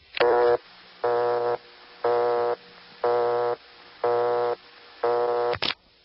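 Telephone busy signal from a 1970s community dial office's mechanical tone plant, heard over the phone line: a buzzy tone pulsing on and off about once a second, six times, then a click as it cuts off near the end.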